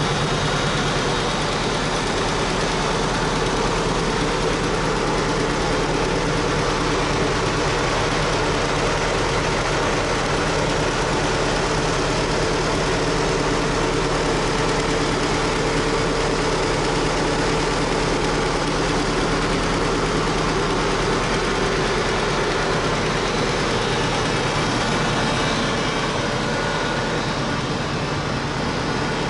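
Homebuilt helicopter's Rotax engine running steadily at an even speed.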